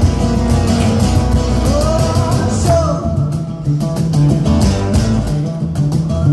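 Live rock band playing a song on acoustic instruments, with strummed guitar and bass under a sung lead vocal line of long held, sliding notes.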